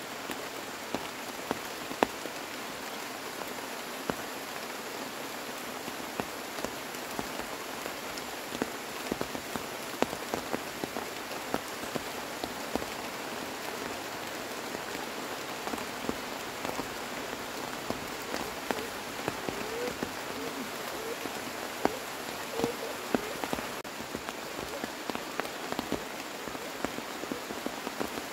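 Steady rain falling, an even hiss with many scattered louder drops ticking close by.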